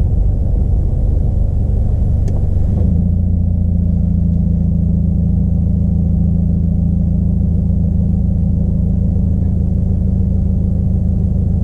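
Subaru WRX's flat-four boxer engine running with a low, uneven rumble. A little under three seconds in it settles into a steady, even drone held at constant revs.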